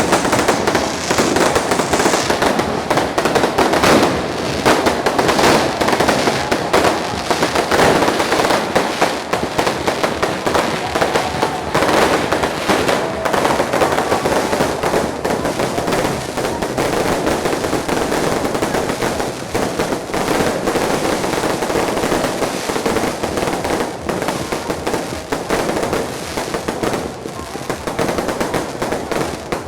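Fireworks going off in a dense, continuous crackle of rapid bangs, easing slightly toward the end.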